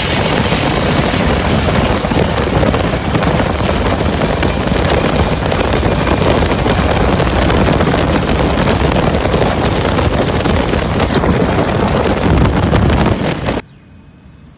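Long-tail boat engine running hard at speed, loud and rough, with wind on the microphone. It cuts off abruptly about a second before the end, leaving quiet background with a faint low hum.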